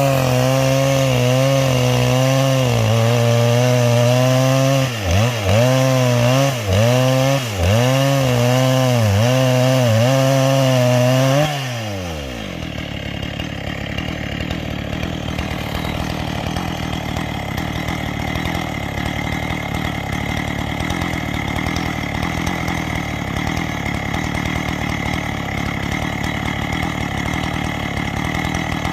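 Two-stroke chainsaw with square-ground chain ripping a garapa log lengthwise at high revs. The engine note repeatedly dips and recovers, less than a second apart, as the chain bites under load. About eleven seconds in, the revs fall away sharply and the saw runs on more quietly at a low, steady idle.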